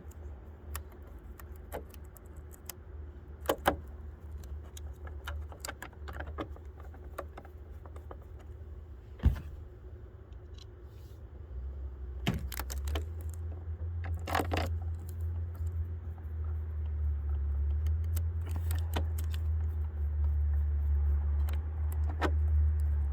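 Small metal clicks, ticks and light jingling from screws and a screwdriver as the third brake light's mounting screws go back in by hand. A low rumble, wind on the microphone, swells in the second half.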